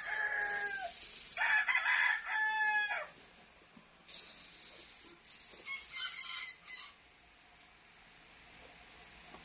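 A rooster crowing: one crow tailing off at the very start, a full crow about a second and a half in, and a shorter call around six seconds. Between them come several short bursts of high hiss, and the last two seconds or so are much quieter.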